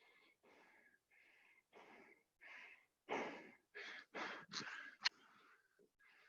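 A person breathing hard and wheezily, out of breath, with short in-and-out breaths about two a second. The breaths grow louder and quicker partway through, ending in a sharp gasp about five seconds in.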